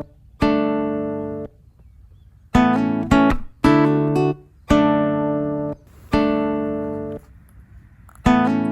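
Music: acoustic guitar chords struck one at a time, about seven of them, each left to ring and die away before the next.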